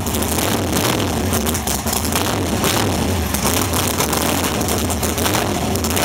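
A dragster's unmuffled racing engine idling loudly and steadily through open exhaust headers, with a deep rumble and uneven pulses.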